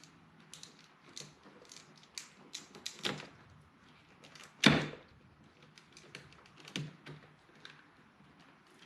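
Plastic clicks and taps as the wiring connectors behind a car door panel are handled and unplugged, with one loud knock a little past the middle.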